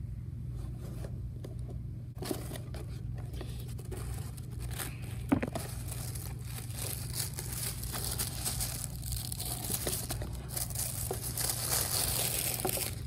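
A cardboard gift box being cut open with scissors and unpacked: cutting and tearing at the seal, a sharp click about five seconds in, then tissue paper crinkling as it is unfolded.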